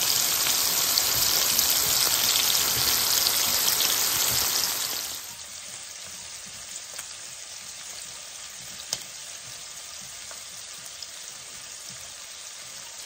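Cod fillets frying in salted butter in a pan over medium heat: a loud, dense sizzle that drops abruptly to a much quieter sizzle about five seconds in. A single sharp click comes near nine seconds.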